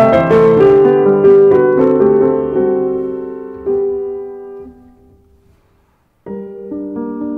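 Background piano music. The notes thin out and fade to a short silence about two-thirds of the way through, then piano music starts again near the end.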